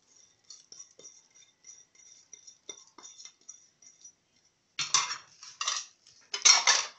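Kitchen handling sounds around a metal tray of chopped vegetables: faint crinkling and ticking as ground spices are shaken from a small packet onto the vegetables, then two louder clattering bursts about five and six and a half seconds in.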